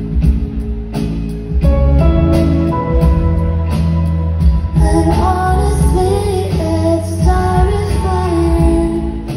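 Live pop band playing: a woman singing over keyboards and drums, her voice most prominent in the second half. Heard as a loud hall recording from the audience.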